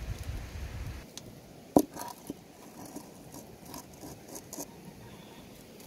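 About a second of low rumble and rustle as sticks are shifted in an open campfire. Then one sharp, ringing knock of a metal cooking pot full of cabbage against the stones of the fire ring, followed by a few lighter taps and clinks.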